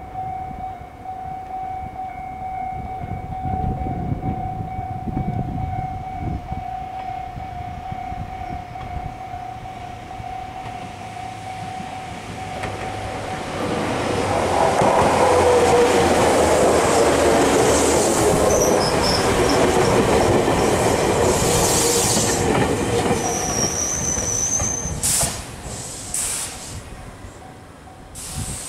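Level crossing alarm ringing steadily as a Toyohashi Railway 1800 series electric train approaches. From about halfway the train's wheels on the rails grow loud as it passes close by, with wheel and brake squeal as it slows into the station. The sound fades near the end.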